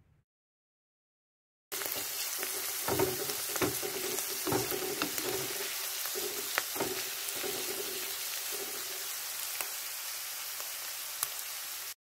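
Sliced champignon mushrooms and onion frying in oil in a pan, a steady sizzle with a few sharp knocks of stirring between about three and seven seconds in. The sizzle starts after a couple of seconds of silence and cuts off suddenly near the end.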